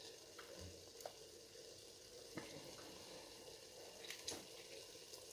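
Apple compote simmering over low heat in a stainless steel pot: a faint steady hiss with a few soft clicks.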